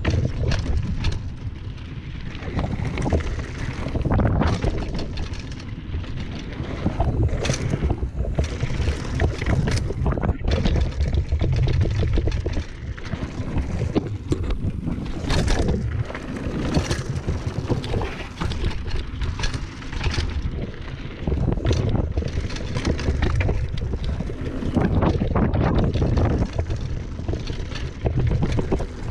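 Wind rushing over the action-camera microphone and the tyres of a Trek Slash 8 mountain bike rolling fast over a dirt and gravel trail on a descent, with frequent sharp knocks and rattles from the bike over bumps.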